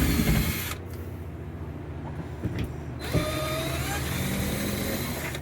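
Power drill with a Phillips bit backing out screws: a short run of the motor at the start, then a longer run from about three seconds in, its whine rising slowly.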